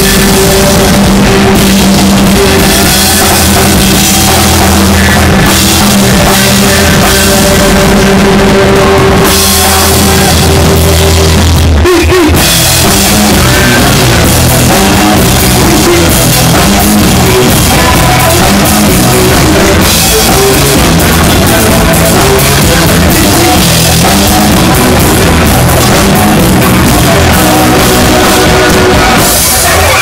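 Live bluesy rock band playing loud: drum kit, electric guitar and bass guitar, picked up close on a cell phone. The band holds long low notes for about the first twelve seconds, breaks off briefly, then moves into a busier groove.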